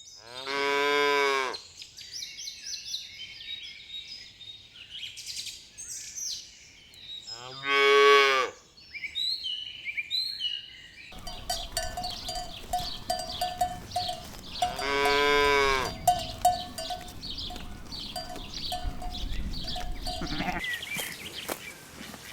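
Cows mooing: three calls about seven seconds apart, each about a second long, with birds chirping in the background.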